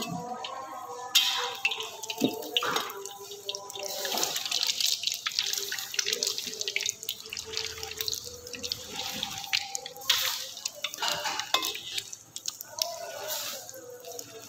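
Oil sizzling and crackling as a fritter deep-fries in a steel wok. A metal spatula scrapes and taps against the wok now and then.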